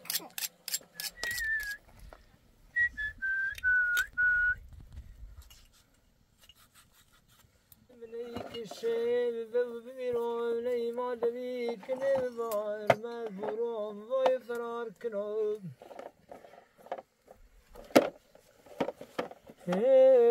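A few short whistled notes, then from about eight seconds a man's voice singing a slow melody of long, wavering held notes. It breaks off near three-quarters of the way through and starts again near the end. Scattered light clicks of a knife on a metal tray.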